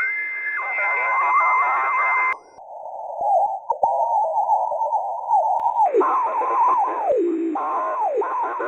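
Shortwave radio signal on 9750 kHz received through a radio app, coming out as a garbled, warbling stream of sliding tones. A steady whistle runs under it for the first two seconds. About two and a half seconds in the sound abruptly turns thin and narrow, then widens again about six seconds in.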